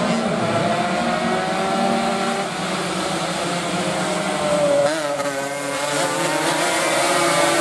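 Several racing motorcycle engines revving hard as a pack goes past on a wet track, the pitches rising and falling as riders shift and brake. About five seconds in, one bike passes close and its note bends sharply.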